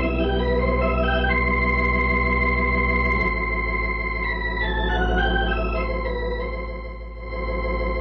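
Organ music bridge: held chords over a deep sustained bass note, the harmony shifting about three seconds in and the music dipping briefly near the end.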